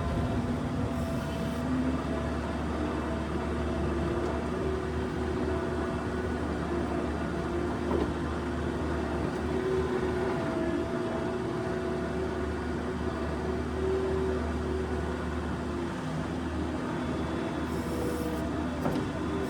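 New Holland skid steer's diesel engine running steadily under work.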